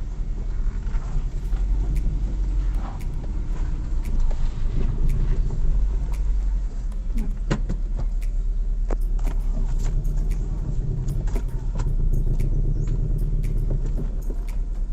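Nissan Grand Livina's engine running at low revs with a steady low rumble while the car creeps slowly into a tight space, with scattered sharp clicks over it.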